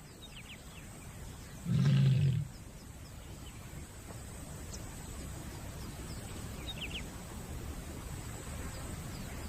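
A lion's single deep call, lasting under a second, about two seconds in. It comes over a steady low outdoor background.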